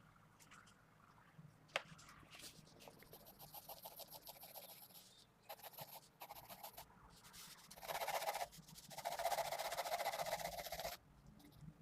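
Pentel GraphGear 500 mechanical pencil with 0.5 mm 2B lead scratching across paper in runs of sketching strokes, with a sharp click about two seconds in; the strokes are densest and loudest near the end.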